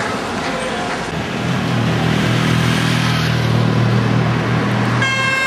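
Car traffic on a city street: a car's engine drones low and steady as it passes close, over a constant wash of road noise. Near the end a car horn starts a long, held blast, part of celebratory honking after a football win.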